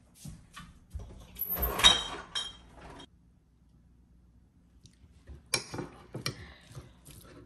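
Clinking and clattering of dishes and glass, then after a short quiet gap a metal spoon clinking and scraping on a ceramic plate as fried rice is mixed.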